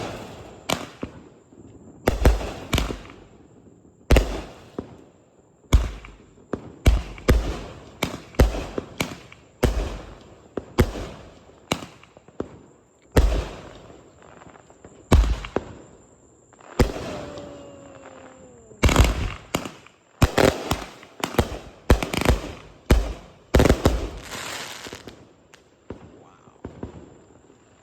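A Sky King 'Dubs' 500 gram cake firework shooting off its volleys: a long run of sharp bangs, sometimes single and sometimes in quick clusters, with crackling between some of the breaks. The barrage stops about two seconds before the end.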